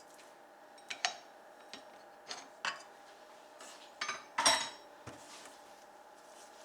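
Kitchen clatter of dishes and utensils: a handful of sharp clinks and knocks, the loudest about four and a half seconds in, over a faint steady hum.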